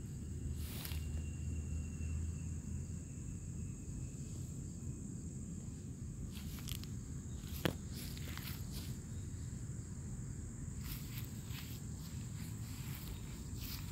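Summer outdoor ambience: a steady high insect buzz over a low rumble, with scattered rustles and footsteps in grass and one sharp click about halfway through.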